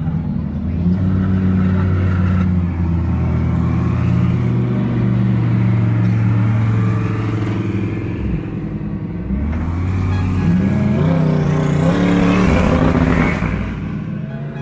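Engines of GT3 race cars, Lamborghini Huracán GT3 V10 and Bentley Continental GT3 twin-turbo V8s, running at low revs as the cars drive slowly past one after another. Near the end one revs up with a rising pitch as it passes close, the loudest moment.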